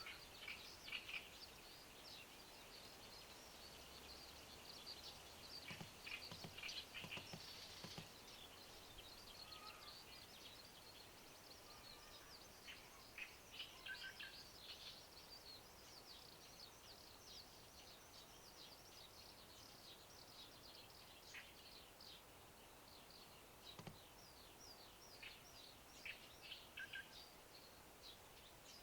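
Faint, quick chirps of several small birds, calling on and off throughout, over a soft steady outdoor hiss.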